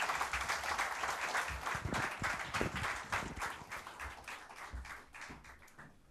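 Audience applauding: many hands clapping, thinning out and dying away to scattered claps near the end.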